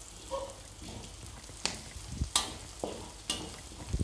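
Onions, garlic, curry leaves and green chillies sizzling in butter in a pan, stirred with a spatula that scrapes and knocks against the pan several times in the second half.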